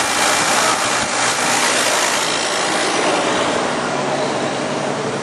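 Oldsmobile 307 V8 of a 1985 Buick Riviera running steadily just after a cold start, with a buzzing hiss from the carburetor. It grows a little fainter near the end.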